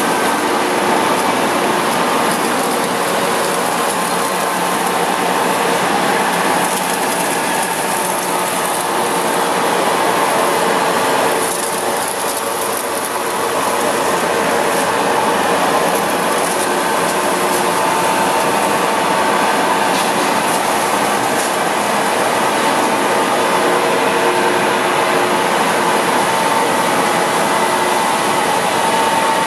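Blanchard #27-48 vertical-spindle rotary surface grinder running under power: a loud, steady machine noise with a constant hum, mixed with coolant pouring into the tank.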